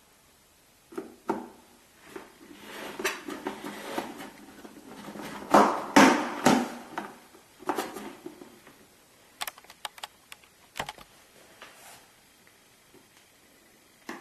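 Hard plastic pet carrier being handled: a run of knocks, rattles and scraping, loudest about halfway through, then a few sharp clicks and quieter ticks toward the end.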